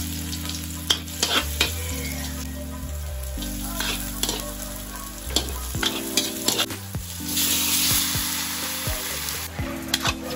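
Garlic and onion sizzling in hot oil in a metal wok, with a metal spatula scraping and clicking against the pan. The sizzling grows louder for a couple of seconds about seven seconds in, as raw chicken pieces go into the oil.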